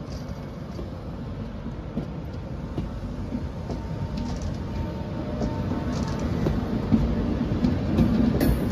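LNER Mark 4 passenger coaches rolling past along the platform: a low rumble with wheels clicking over rail joints, growing steadily louder.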